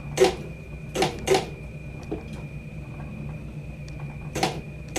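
1961 Indian Scout coin-operated kiddie ride running, its motor giving a steady low hum with a thin high whine, over which its shooting-gallery gun and targets give sharp mechanical clacks: three in the first second and a half and one near the end.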